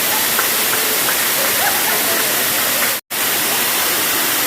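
Waterfall: a steady rush of falling water, broken once by a brief drop-out to silence about three seconds in.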